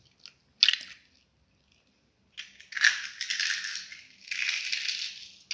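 An egg being cracked open by hand over a bowl of flour: a sharp crack of the shell about half a second in, then two longer crackly rustles as the shell is handled and crushed.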